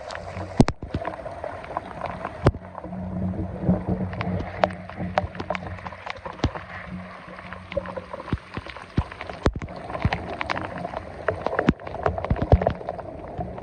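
Water sloshing and gurgling, with many sharp knocks and clicks scattered throughout and a low hum that comes and goes.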